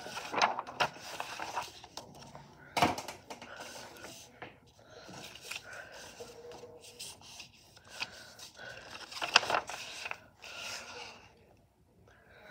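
A sheet of stiff brown paper being handled and folded on a wooden desk: rustling and rubbing as a hand presses and slides across it, with sharp paper snaps at the start, about three seconds in and about nine seconds in.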